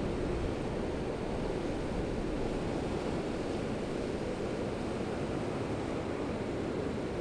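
Winooski River floodwater rushing past in a steady, unbroken noise: a river running high and fast after heavy rain.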